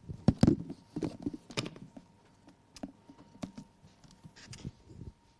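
Irregular clicks and knocks of a laptop being typed on and handled, busiest in the first two seconds, over a faint steady tone.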